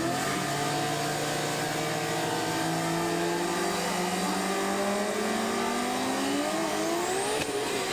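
Fox-body Ford Mustang drag car doing a burnout on slicks: the engine is held at high revs while the rear tyres spin, and its pitch climbs steadily over the last few seconds.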